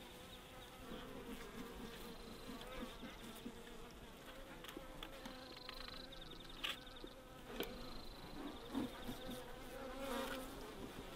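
A honeybee colony humming steadily in an open hive box, with a few sharp clicks as frames are handled.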